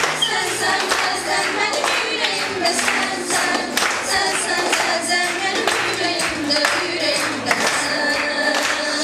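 Girls singing a song over recorded backing music with a steady beat.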